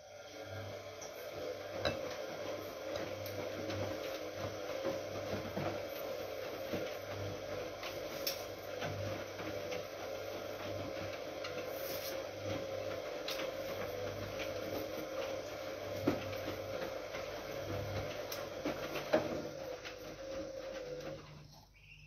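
Bosch WFK 2431 front-loading washing machine tumbling its wash: the drum motor runs with a steady whine and a low, pulsing hum, with laundry rubbing and light knocks in the drum. It starts at the outset and stops about a second before the end, as the drum comes to rest in the wash rhythm.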